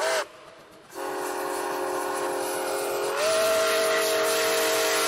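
Locomotive multi-chime air horn: a short toot, then, about a second in, a long held chord that shifts slightly higher partway through.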